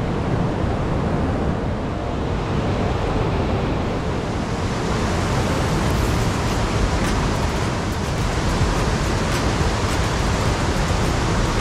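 Fast river water rushing over rocks and through rapids, a steady full noise.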